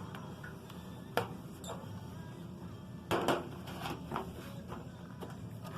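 Scattered plastic clicks and knocks as an HP laptop's case is pressed around its edge to snap its clips shut, with a louder cluster of clicks near the middle.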